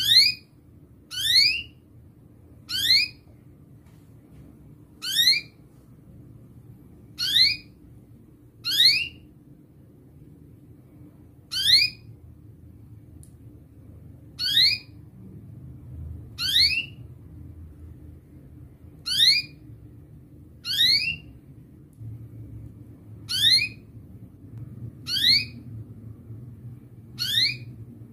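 Domestic canary giving a short rising call note over and over, one every couple of seconds, about fourteen in all, each a quick upward sweep.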